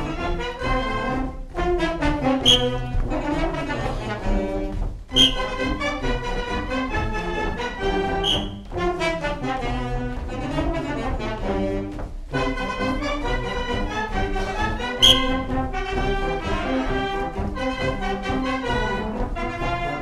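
Brass-led band playing instrumental music for a Terceira carnival sword dance (dança de espada), with a few sharp percussive hits.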